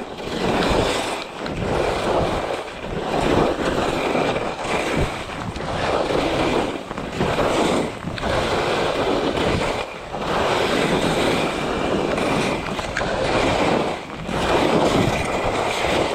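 Skis carving linked turns on firm, chalky snow: a scraping swoosh that swells and fades with each turn, roughly every one to two seconds, with wind on the microphone.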